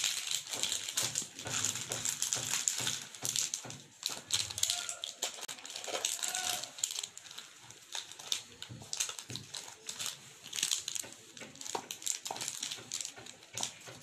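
Plastic chocolate wrappers and cellophane crinkling and rustling as the wrapped bars are handled and tucked into a basket, with an irregular run of small crackles.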